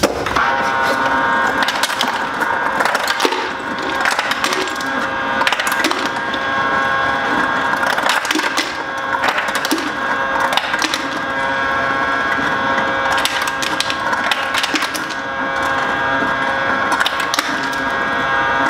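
Refrigerator door ice dispenser running on crushed ice: a steady motor hum with irregular cracking and clatter of ice being crushed and dropping into a container. Little ice is coming through because the ice bin is running low.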